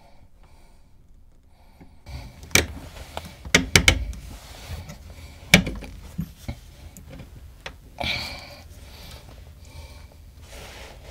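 Knocks, clicks and clatter of hands handling tools and parts in a cramped, small-sounding space. There are several sharp knocks between about two and four seconds in, a single loud one a little later, and a short rustle near the end.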